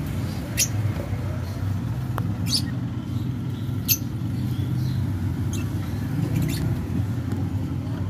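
Short, high squeaks from lovebird chicks, about five spaced a second or two apart, over a steady low rumble.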